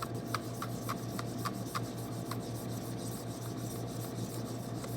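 Spoon stirring and scraping a shampoo slime mixture in a bowl. It clicks about three times a second over the first two seconds, then goes on with steady rubbing.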